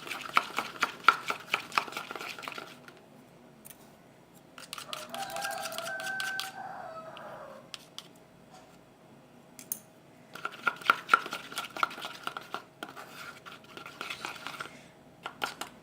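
Slime mixture of glue, moisturiser and paint being stirred in a container, the utensil clicking and scraping rapidly against its sides in two bouts with a pause between. A brief pitched sound is heard during the pause.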